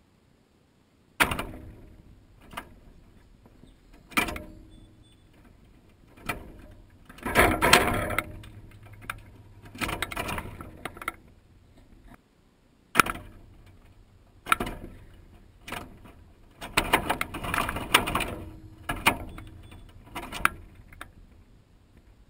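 Wire-mesh peanut feeder, with the camera fixed to it, knocked and rattled in a run of sharp clicks and clattering clusters: blue jays landing on it and pecking at the peanuts. The first knock comes about a second in, with longer rattling bouts about a third of the way in and again near the end.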